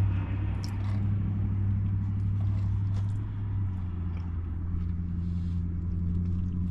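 A car's engine idling, heard from inside the cabin as a steady low hum that shifts slightly in pitch about four seconds in. A few light clicks of a plastic fork in a plastic food container sound over it.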